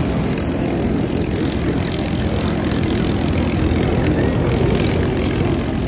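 P-51 Mustang's V-12 piston engine running steadily at low power as the fighter taxis.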